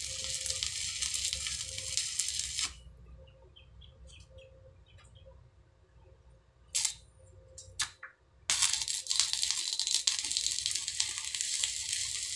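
Stick (arc) welding on steel angle bar: the electrode arc crackles and sizzles steadily and stops about a third of the way in. After a couple of brief crackles, a second weld starts a little past the middle and runs on.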